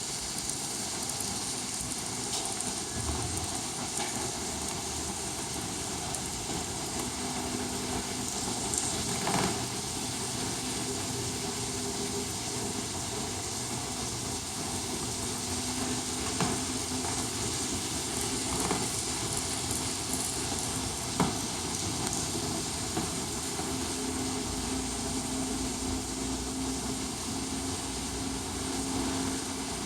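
N-scale model train running on the layout: a faint motor hum that comes and goes under a steady hiss, with a few scattered clicks.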